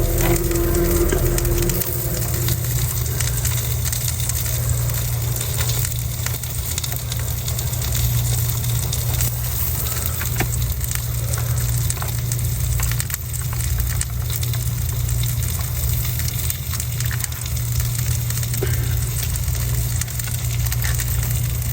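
A steady low hum with faint crackling throughout.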